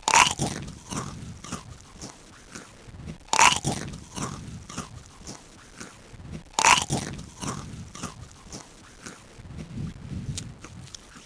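Potato chips being eaten: three loud crunching bites about three seconds apart, each followed by chewing.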